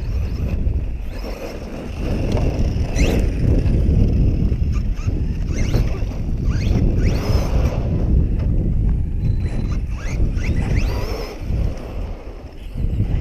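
Brushless electric RC truck's motor whining in short rising bursts as it accelerates again and again, over a heavy rumble of wind on the microphone.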